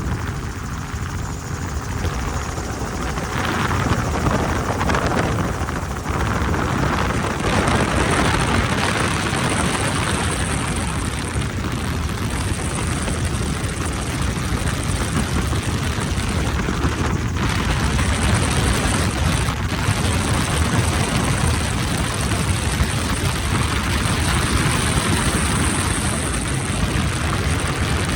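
Helicopter in flight: steady rotor and engine noise with a constant high hiss.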